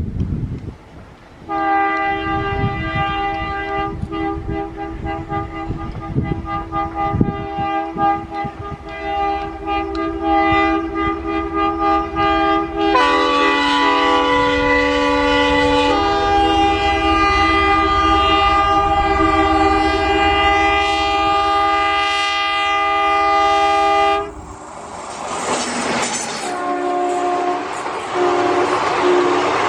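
ALCo WDM3A diesel locomotive sounding its multi-note horn in one long blast of over twenty seconds, the chord shifting higher for a few seconds midway, over the low rumble of the passing train. The horn then cuts off, and after a few seconds of rushing train noise come short repeated horn toots near the end.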